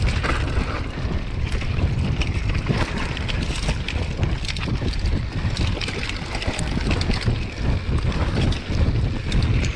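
Hardtail mountain bike riding fast down a loose, stony dirt trail: wind buffeting the action camera's microphone over a constant low rumble of tyres on dirt, with frequent clicks and rattles as the bike bounces over stones and roots.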